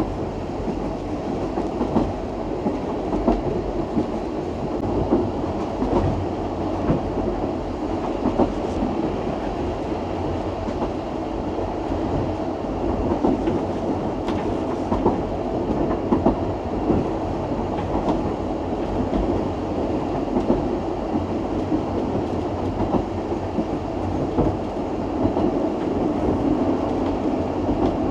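Narrow-gauge steam railway train running along the track: a steady rumble with irregular clicks and knocks from the wheels over the rail joints.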